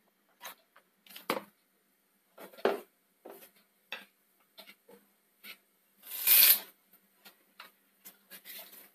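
Mustard seeds frying in hot oil in a pan, starting to splutter: scattered faint crackles and pops, with a louder half-second crackle about six seconds in. This is the tempering stage, when the seeds pop in oil hot enough.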